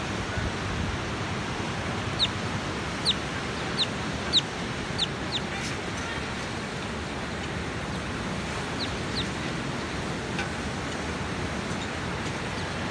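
Surf breaking steadily on the beach. About two seconds in, a bird gives a run of six short, high chirps that fall in pitch, then two more later.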